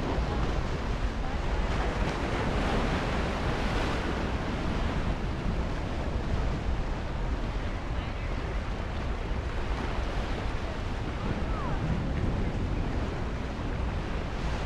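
Ocean surf washing over the rocks at the foot of a sea cliff, a steady rush that swells louder about two to four seconds in. Wind buffets the microphone with a low rumble.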